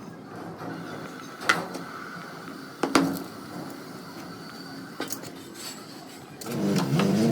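Metal tools or parts being handled in a workshop: three sharp clanks a second or so apart, then a louder, wavering pitched sound for under a second near the end.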